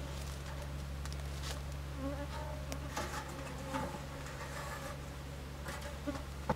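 Japanese honeybees buzzing around their stacked wooden box hive as it is opened to add a box, with a couple of light knocks.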